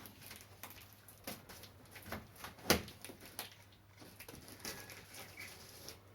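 Scattered light knocks and clicks at irregular intervals, with one louder knock about two and a half seconds in.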